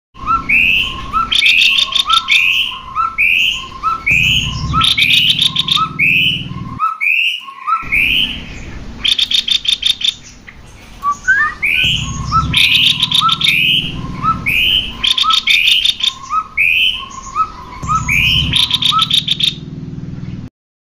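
Cucak kopi birds calling over and over: short rising whistled notes about twice a second, broken every few seconds by bursts of fast, rattling chatter.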